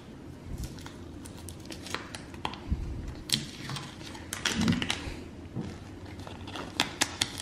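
Blue painter's masking tape being peeled off a spray-painted elk antler and crumpled in the hand: irregular soft crackles, crinkles and small ticks, with a few light knocks of the antler against the wooden table.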